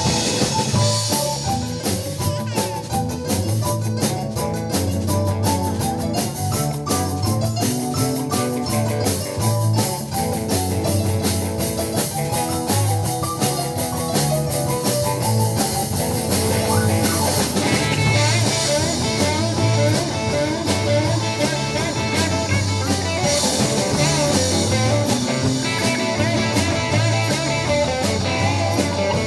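Live blues-rock band playing an instrumental break with no singing: guitar over bass and a drum kit keeping a steady beat. The drum pattern shifts about two-thirds of the way through.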